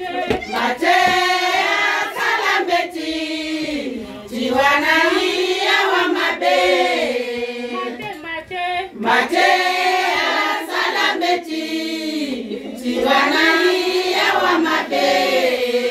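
A group of women singing together, a choir-like song in phrases with short breaks between them.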